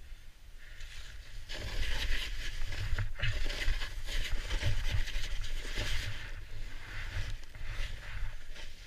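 Snowboard riding through deep fresh powder: a rushing hiss of the board slicing and spraying snow that swells and eases with the turns, over a low rumble. It starts quieter and builds about a second and a half in.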